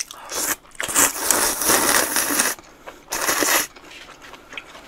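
Slurping wet, cold naengmyeon noodles out of their broth: a short slurp, a long slurp of about a second and a half, then another short one.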